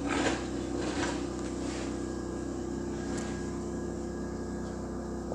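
MIG welding on quarter-inch steel plate: the arc crackles for the first couple of seconds, then stops. After that only a steady electrical hum from the welding machine remains.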